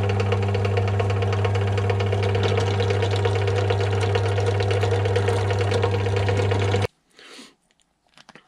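Benchtop drill press running steadily with a small bit drilling a hole through a brass part for its retaining clip. The hum cuts off suddenly about seven seconds in, leaving only faint handling clicks.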